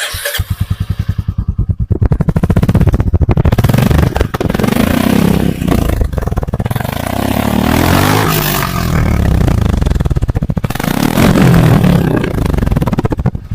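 Royal Enfield Classic 350 single-cylinder motorcycle exhaust running with a steady thumping beat, revved up and back down several times.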